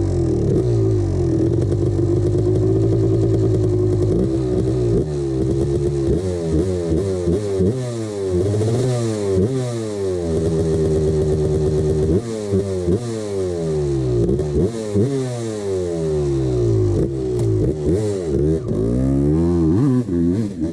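1989 Honda CR250 two-stroke single-cylinder engine running steadily for about five seconds, then revved up and down again and again. It has piston slap, a sign of a worn piston and cylinder.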